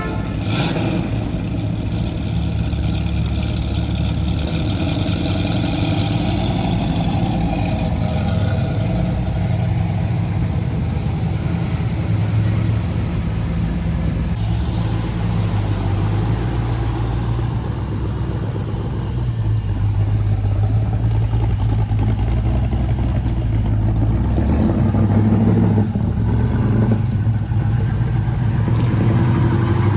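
Classic muscle car engine running steadily, its note shifting a few times through the stretch.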